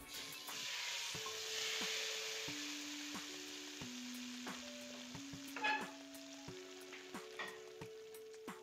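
Hot clarified butter (desi ghee) poured over thick cooked lentils, sizzling at once and slowly dying down as the bubbling settles. A single sharp metallic clink about two thirds of the way through.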